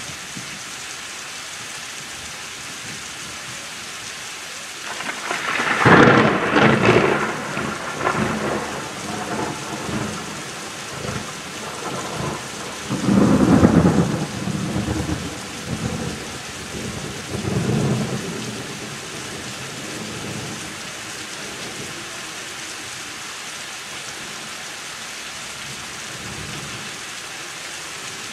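Steady heavy rain with a loud thunderclap about five seconds in, which rolls on as rumbling thunder with two more swells before fading out after about fifteen seconds.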